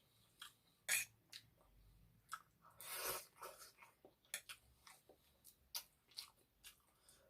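Eating sounds of egg noodles with chicken curry: quiet chewing with many short, sharp mouth clicks, and one longer, louder noisy sound about three seconds in.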